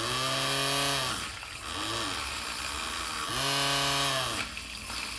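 Small electric motor of a homemade coffee mixer whirring in short bursts as it stirs coffee and water. Its pitch rises as it spins up and falls as it stops: two longer runs of about a second, with a brief blip between them.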